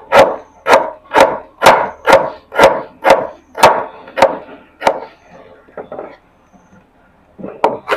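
Kitchen knife chopping garlic cloves on a wooden cutting board: steady knocks about two a second that thin out after about five seconds and pick up again near the end.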